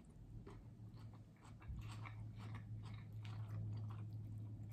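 A person chewing and biting food close to the microphone, with irregular crunchy clicks. A steady low hum rises underneath a little under two seconds in.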